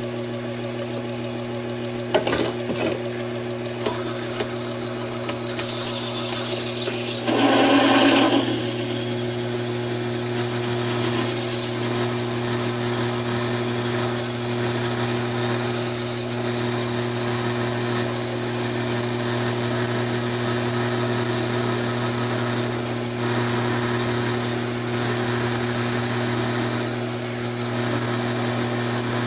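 Taig micro lathe running steadily with a hum while a quarter-inch twist drill, fed from the tailstock, cuts into 1018 steel rod with a continuous scraping hiss. There are a couple of knocks about two seconds in and a brief louder burst of cutting noise about seven seconds in.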